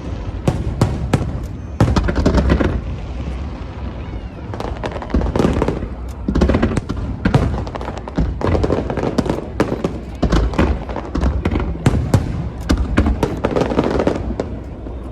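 Aerial fireworks display: many sharp bangs and dense bursts of crackling in quick succession over a steady low rumble.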